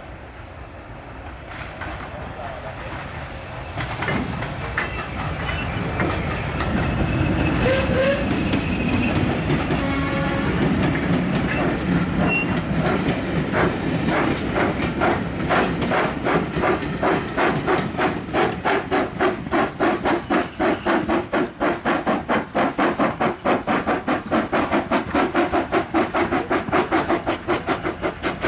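Steam locomotive working a train, coming closer and growing louder. From about halfway through its exhaust beats come as a rapid, even chuffing, roughly three strokes a second, with steam hiss underneath.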